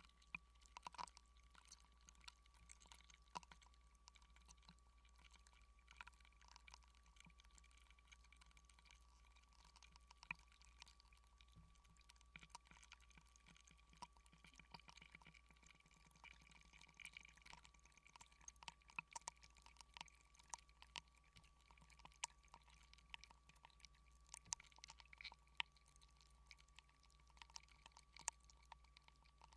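Near silence: faint scattered clicks and crackles over a steady low hum and a thin steady tone.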